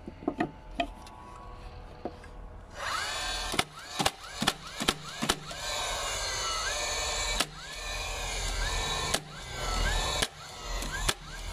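Cordless DeWalt battery nailer driving nails into timber boards. Its motor whirs up with a rising whine before each shot, and each nail goes in with a sharp crack: a quick run of about five, then more spaced a second or two apart. A few light knocks of the board being set in place come first.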